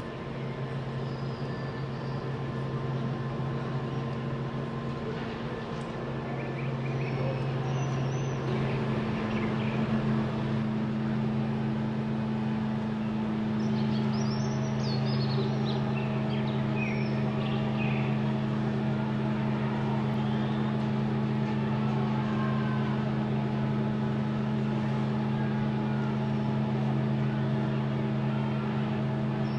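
A large engine runs steadily with a constant low hum that holds the same pitch throughout. Birds chirp now and then, mostly in the middle.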